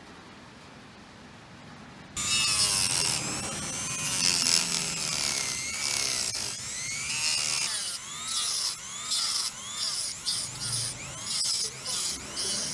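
Handheld rotary tool with a small cut-off disc cutting into the plastic motor housing of an angle grinder. It starts about two seconds in, its pitch dipping and recovering as the disc bites. From about eight seconds in it cuts in short strokes, about two a second.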